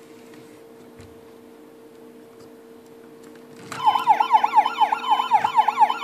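Electronic police siren from a battery-powered police-car Transformers robot toy, set off by pressing its chest button: a fast up-and-down warbling wail that starts suddenly a little under four seconds in and keeps going.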